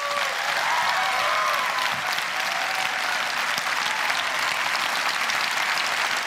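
Large audience clapping in a dense, steady ovation, with a few cheering shouts in the first couple of seconds.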